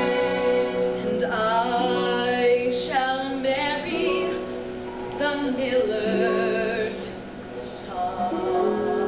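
A woman singing a solo number from a stage musical, her sung phrases wavering with vibrato over sustained orchestral accompaniment.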